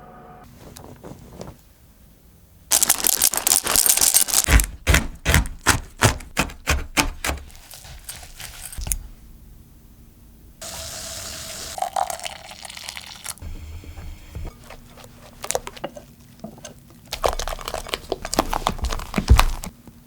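Close-miked cake-making sounds in several short cuts: a noisy burst, then a few seconds of quick, evenly spaced strokes in a bowl, a steady hiss around the middle, and another noisy burst ending in a thump near the end.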